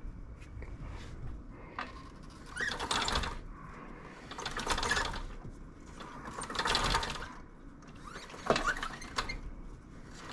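Rummaging and handling noises while searching for a chain master link: bursts of rustling and light clicking that come and go about every two seconds.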